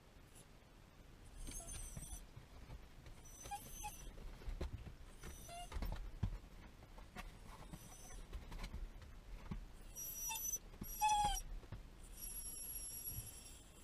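A dog whimpering, a series of short whines, one of them falling in pitch about eleven seconds in.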